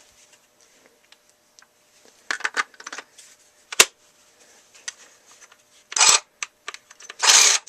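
Handling noises from a Ryobi cordless reciprocating saw: scattered plastic clicks and knocks, a sharp single click about four seconds in, and two short rattling clatters near the end.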